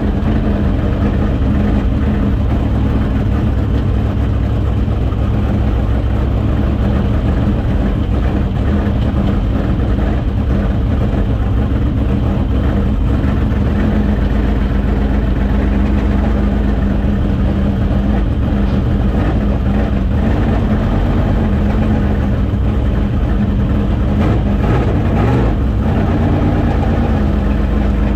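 Dirt late model race car's V8 engine running steadily at a low, even speed, with a slight rise in pitch near the end.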